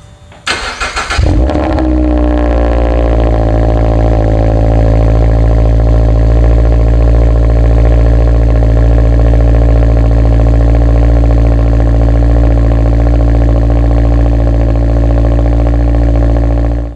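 2023 Subaru BRZ's 2.4-litre flat-four on its stock header, cold started: the starter cranks briefly, the engine catches with a short flare and settles into a loud, steady fast idle through the single exhaust tip.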